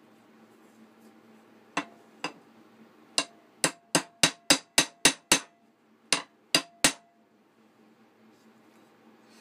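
Small ball-peen hammer striking a metal pin through an antler knife handle, peening its end over to lock the handle in place. There are two light taps, then a quick run of about eight strikes at three to four a second, then three more, each with a faint metallic ring.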